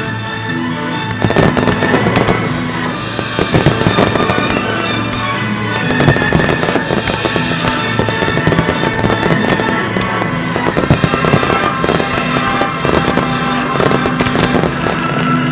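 Fireworks bursting and crackling over music, in a rapid string of bangs that starts about a second in and keeps up.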